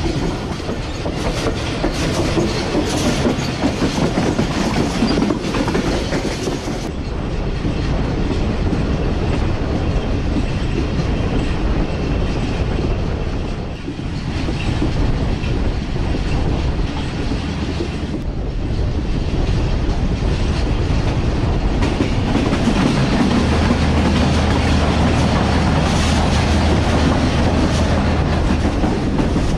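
Passenger train running, heard from on board a coach: a steady rumble with wheels clicking over the rail joints. A low steady hum joins for the last few seconds.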